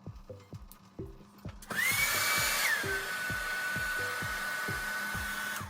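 A hair dryer switches on about two seconds in, running with a steady hiss and high whine that drops to a lower pitch about a second later, then cuts off near the end. Background music with a steady beat plays throughout.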